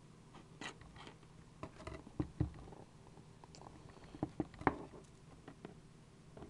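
Hands opening a sealed trading card box: scattered taps, clicks and crinkles of plastic wrap and cardboard, with a few louder knocks about two seconds in and again near the middle.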